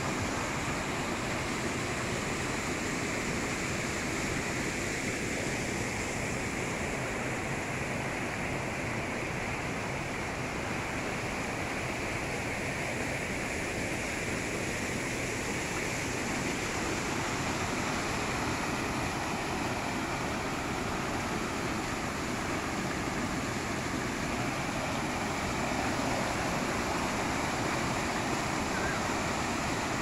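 Small rain-swollen stream rushing and splashing over rocks: a steady, unbroken wash of water noise.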